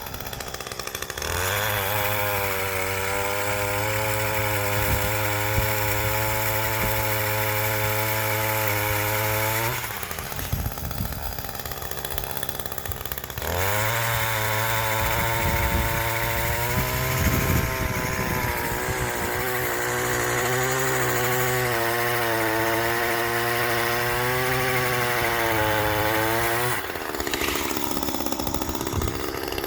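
Echo two-stroke power pruner (pole chainsaw attachment on a string-trimmer power head) run at full throttle to cut tree limbs, held high for about eight seconds, dropping back to idle for a few seconds, then revving up again for a longer cut of about thirteen seconds before falling back to idle near the end.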